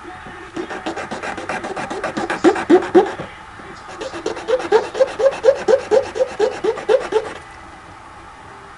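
Rhythmic back-and-forth scraping on the plastic of a 1/64 scale diecast car, about three to four strokes a second with a squeak on each stroke, in two bouts with a short pause between. It is trimming the plastic down so the new wheels fit.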